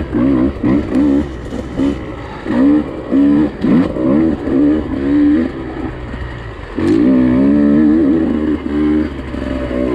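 Husqvarna TE150i TPI two-stroke dirt bike engine on the trail, revving up and dropping back in short throttle bursts about twice a second, then one longer pull about seven seconds in. The bike is fresh out of the crate and being ridden gently on part throttle while it breaks in.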